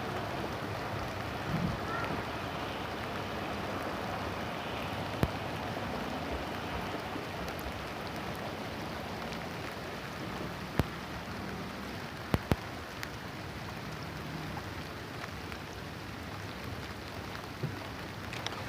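Gentle rain falling steadily, with a few sharper drops ticking now and then.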